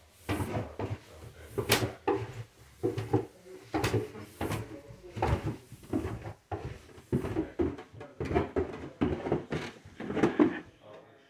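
Footsteps going down carpeted stairs and onto the floor below, a steady run of thuds about two a second.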